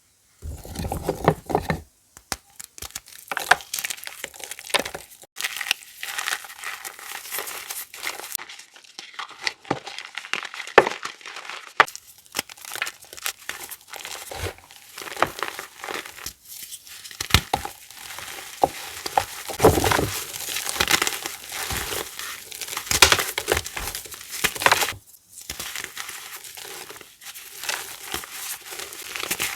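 Blocks of reformed, dyed gym chalk being crushed and crumbled: a dense, irregular run of crisp crunches and crackles, broken by a few brief pauses.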